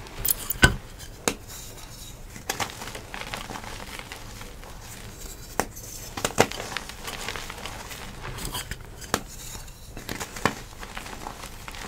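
Dyed gym chalk block crunching and crumbling as pieces are squeezed and broken in the hands, with a few sharp, irregular cracks over a soft gritty rustle of chalk powder.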